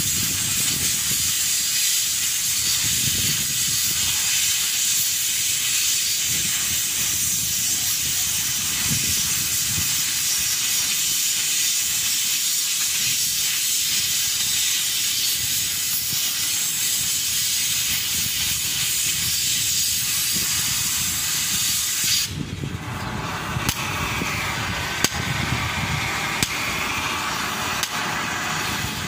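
Oxy-fuel cutting torch cutting through steel plate with a loud, steady hiss. About three-quarters of the way through, the hiss cuts off suddenly as the torch stops, and a few light clicks and taps follow.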